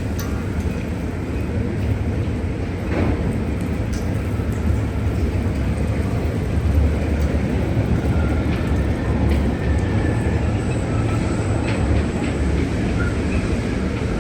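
Gale-force wind buffeting the microphone: a loud, steady low rumble with an even rushing noise over it.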